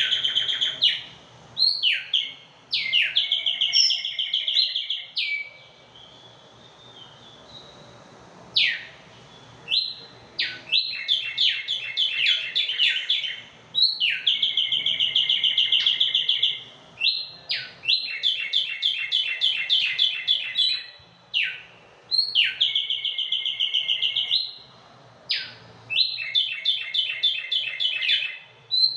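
Caged tumbayegua songbirds singing, phrase after phrase of high, fast trilled song with short gaps between phrases. The song pauses for a few seconds about six seconds in.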